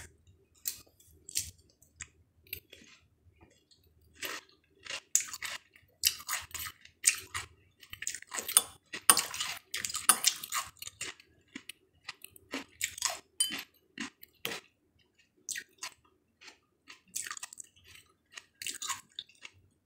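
A person chewing bites of firm, juicy melon, in short irregular crunches with a brief pause about three-quarters of the way through.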